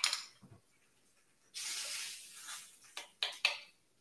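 A short hiss, starting abruptly about a second and a half in and lasting just over a second, with a few light clicks at the start and near the end.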